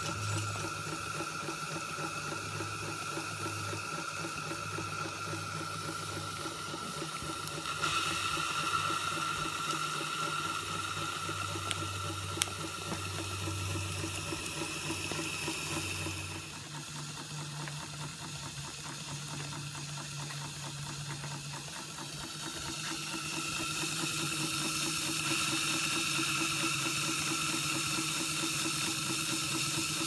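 Maxitrak 1-inch-scale live-steam Fowler ploughing engine running: a steady hiss of steam with a fast, even beat from the engine. The hiss grows louder near the end.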